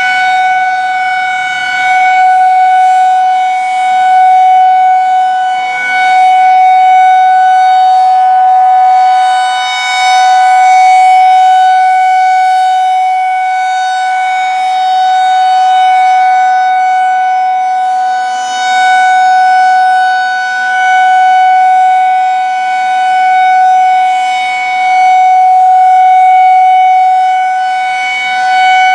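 Federal Signal 2001-SRN rotating tornado siren sounding a steady alert signal: one loud, unchanging pitch whose loudness swells and fades every several seconds as the rotating horn sweeps toward and away.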